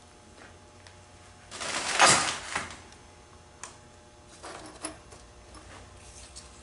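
Metal parts of a Nissan CVT drive pulley being handled while the pulley is taken apart: a rattling metallic scrape about two seconds in, then a few lighter clicks and taps.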